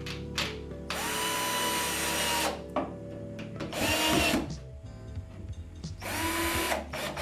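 Cordless drill/driver driving screws into a wooden cabinet frame: three separate runs of the motor whining steadily, the first about a second and a half long, the second falling in pitch as it stops.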